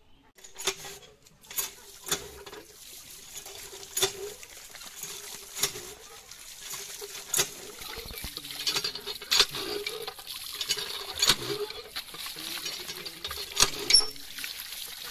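Cast-iron hand pump being worked: the handle knocks at each stroke, about every two seconds, with a squeaky creak in between. Water gushes from the spout and splashes through fish pieces in a plastic basket, growing louder from about halfway.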